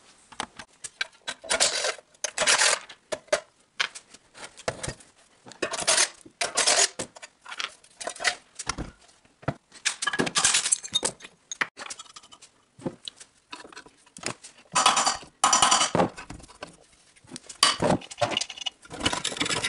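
Metal hand tools and engine parts clinking and rattling in irregular bursts as an 8 mm wrench works the bolts of a small Honda-clone engine's cover during teardown.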